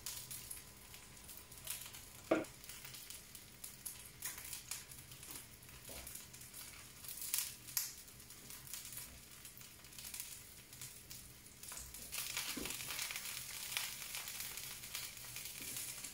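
Sausages and garlic bread frying in oil in a pan and a wok on a gas hob: a steady sizzle with scattered crackles and a few knocks. The sizzle grows louder about twelve seconds in.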